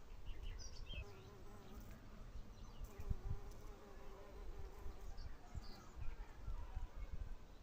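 A flying insect buzzing, a thin hum that wavers in pitch, with a few faint bird chirps.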